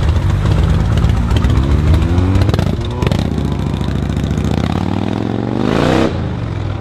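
Motorcycle engine revving up: its pitch climbs for a couple of seconds, breaks, then climbs again to a high pitch and cuts off sharply about six seconds in.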